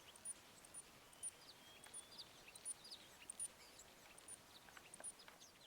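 Faint, high-pitched bird chirps and short call notes, scattered irregularly, some sweeping quickly downward, over a soft background hiss.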